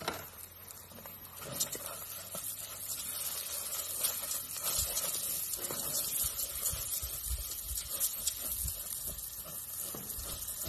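Arborio rice and garlic toasting in hot olive oil in a stainless steel pot: a steady sizzle, with soft scrapes and taps as a spatula stirs the rice.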